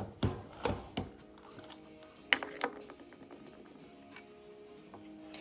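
Sharp metallic clicks and clinks from handling brass cartridges and parts at a Lyman reloading press: a few knocks in the first second and a louder click a little after two seconds in.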